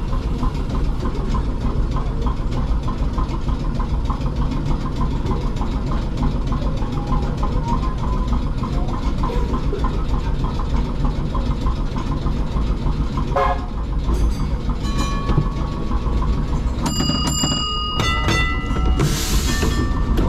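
Steady low rumble of vintage electric trams standing at a stop, heard from inside a tram cab, with a brief squeal about two-thirds through. Near the end a tram bell rings with several quick strikes, followed by a short burst of hiss.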